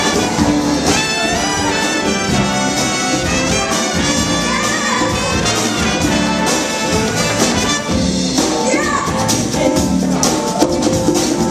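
Live big band playing a brassy jazz passage, with trumpets and trombones to the fore over saxophones and the rhythm section.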